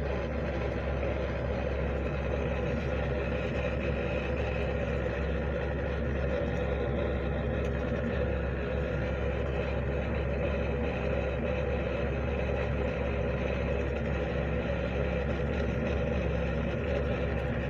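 A motor running steadily with a constant low hum and several steady tones above it, unchanging throughout.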